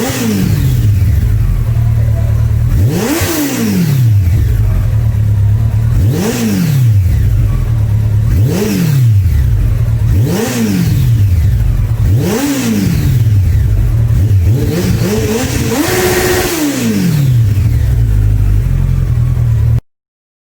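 Kawasaki superbike engine revved repeatedly through its exhaust over a loud idle: about seven blips, each rising sharply in pitch and falling back. The last blip is held a little longer at the top. The sound cuts off suddenly near the end.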